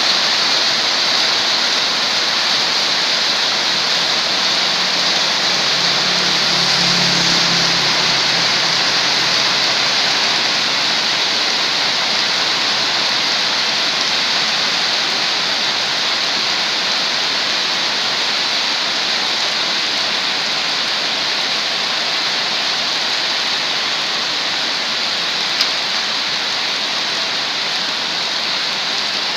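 Heavy rain pouring down steadily on a road and surrounding roofs and vegetation, a dense, even hiss of falling water.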